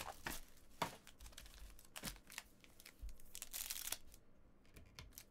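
Foil wrapper of a Bowman Chrome baseball card pack crinkling as it is handled and pulled open, in faint scattered crackles.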